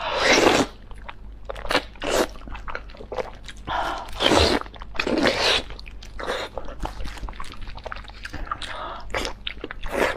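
Close-up mukbang eating sounds: biting into and chewing the soft meat and tendon of a braised beef knee bone, wet and irregular. There are louder bites right at the start and at about 2, 4.5 and 5.5 seconds. The audio is sped up to double speed.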